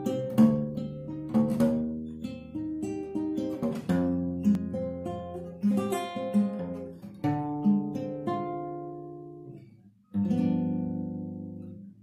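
Acoustic seven-string guitar playing an instrumental introduction: plucked chords and bass lines, each note decaying. A brief stop just before ten seconds in, then one last chord that rings and fades away.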